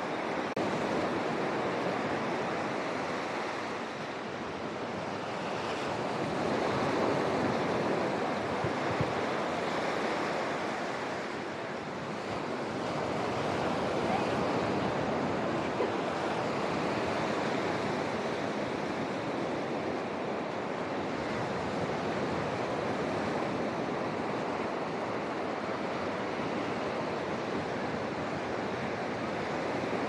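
Ocean surf breaking on a sandy beach: a steady wash of waves that swells and eases every few seconds.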